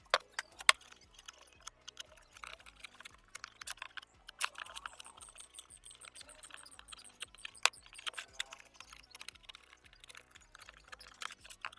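Irregular light taps and clicks, with a few sharper knocks, from hand work on sunmica laminate sheet, over faint background music.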